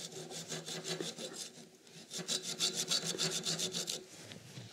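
Hacksaw blade scraping excess hemp sealing fibre off a threaded steel-pipe joint at a valve, in quick rasping strokes, several a second, with a short break a little before halfway through.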